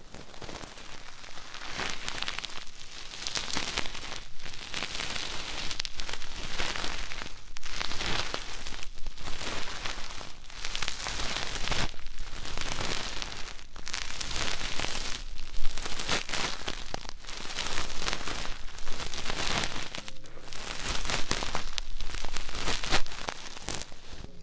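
A thin cord drawn back and forth across an ASMR microphone's ear piece, a rough crackling scratch right on the mic that swells and fades in strokes about once a second.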